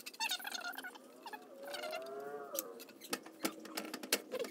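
Stainless box grater handled over a stainless saucepan while grated ginger is knocked off it: wavering squeaky tones in the first half, then several sharp taps near the end as the grater is knocked against the pan.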